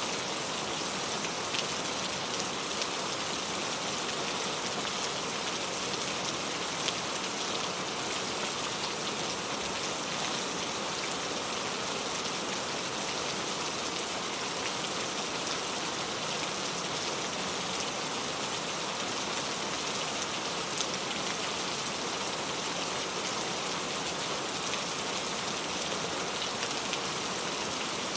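Steady rain falling, an even hiss with scattered drop ticks on a surface.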